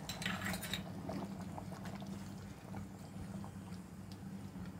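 Silicone spatula stirring thick, simmering chicken gravy in a metal pot: soft wet squelches and a brief scrape about half a second in, over a steady low hum.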